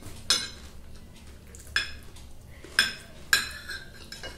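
Metal fork clinking and scraping against a glass plate, four sharp clinks with a brief ring, the last one the loudest.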